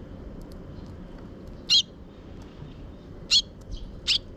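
Eurasian tree sparrows chirping: three short, sharp chirps, the first a little under two seconds in and two close together near the end, with a few faint ticks of beaks pecking seed off a wooden board.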